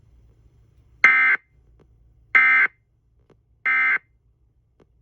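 Emergency Alert System end-of-message code: three short bursts of buzzy SAME digital data tones, about a second and a bit apart, marking the end of the weather alert.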